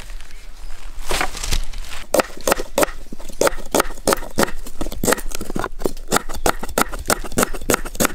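Quick, regular chopping strokes, about four or five a second, from about two seconds in, after two single strikes in the first second or so.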